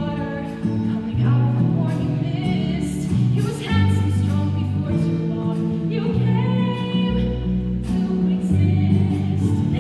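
A musical-theatre song: singing over band accompaniment, with sustained bass notes under the voices.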